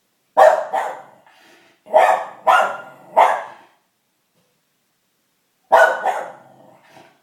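A dog barking in three groups of loud, sharp barks: two near the start, three more a second or so later, then two near the end. It is an alarm reaction to noises from outside.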